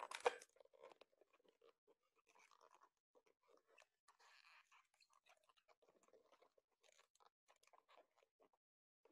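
Long latex modelling balloon being twisted by hand, the rubber rubbing and crackling against itself: a louder cluster of crackles right at the start, then faint scattered rubs and crackles.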